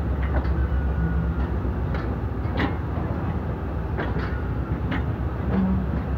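Passenger train rolling slowly out of a station, heard from the open door of a coach: a steady low rumble with irregular clacks and knocks from the wheels and couplings.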